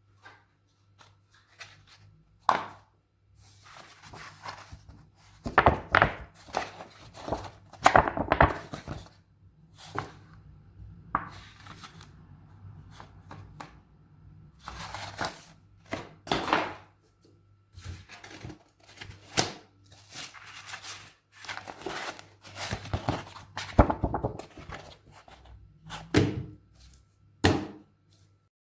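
Hand work on a bench: irregular knocks and thunks with scraping and rustling as objects and material are handled and set down, over a faint steady low hum.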